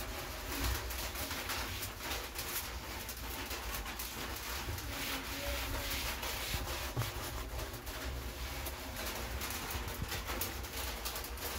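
Cloth or scrubbing sponge wiping a countertop, a run of short rubbing strokes across the surface.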